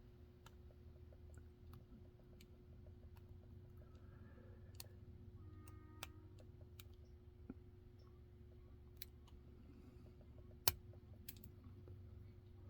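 Faint, scattered metallic clicks of a tension tool used as a pick working the pins inside a lock, with one sharper click near the end. A low steady hum runs underneath.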